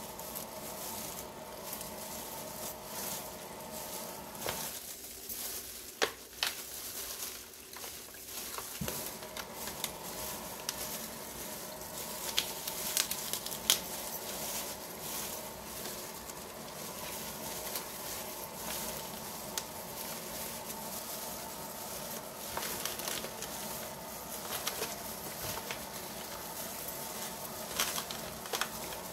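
Gloved hands tossing and squeezing rice paper salad in a foil pan: a continuous crinkling rustle of thin plastic gloves and dry shredded rice paper, with scattered sharper crackles and clicks.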